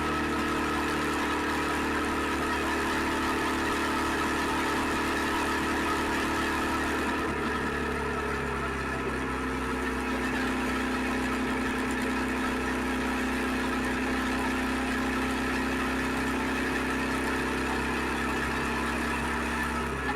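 Suzuki SV650X's 645 cc V-twin engine running steadily. About eight seconds in, its pitch drops and then holds at the lower note.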